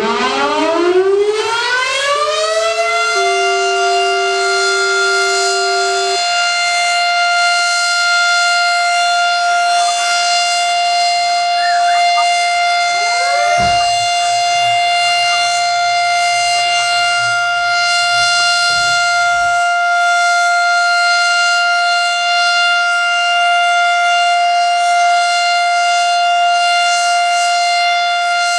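Federal Signal Model 7 outdoor warning siren winding up over the first three seconds and then holding one steady tone: the 3-minute alert signal, sounded as a monthly test.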